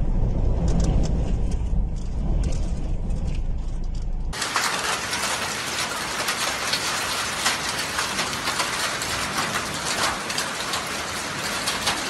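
Storm wind buffeting the microphone as a heavy low rumble for about four seconds. It then cuts abruptly to a steady hiss with many small crackles.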